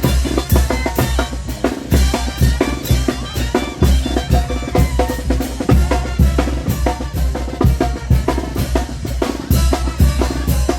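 Chinelo brinco music: a steady, driving beat of bass drum and snare under pitched melody instruments.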